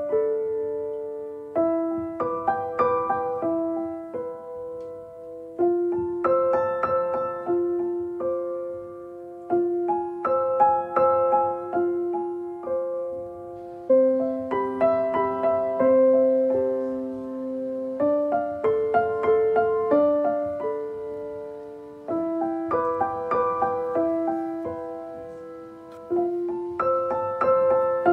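Background piano music: a slow, gentle tune of struck notes and chords, each fading before the next.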